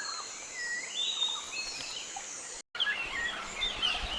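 Rainforest ambience of several birds chirping and calling over a steady high insect drone. The sound cuts out for a moment about two-thirds through, then resumes with busier chirping.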